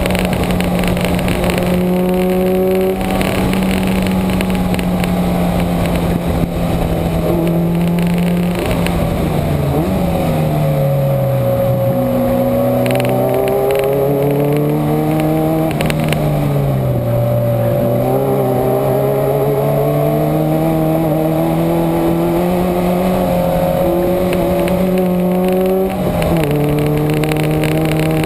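Onboard sound of a Subaru's flat-four engine at full throttle on a race track, with wind and tyre noise. The engine holds a high pitch for several seconds, drops as the car slows for a corner about nine seconds in, pulls back up through the revs with another dip midway, then falls in a step near the end as a gear changes.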